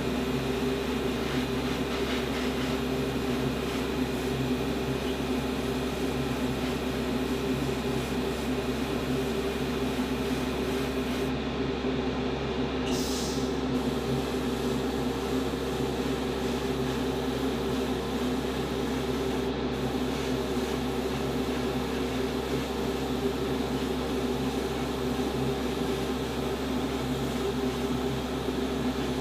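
Steady electric hum with an even hiss of air from airbrush equipment running while small plastic model parts are sprayed.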